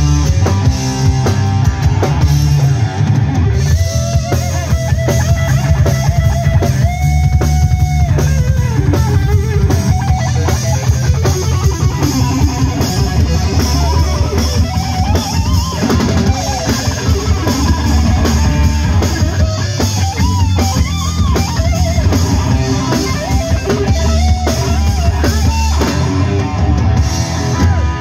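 A live rock band playing loud: electric guitars, electric bass and a full drum kit.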